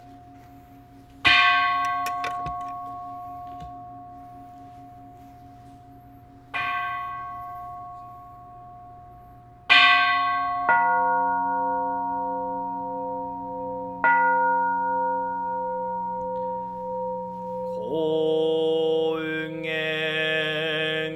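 Buddhist bowl bell struck five times, each strike ringing out and slowly fading, with later strikes overlapping the ringing of earlier ones and a wavering beat in the tone. About three seconds before the end, a slow chant begins as the bell calls it in.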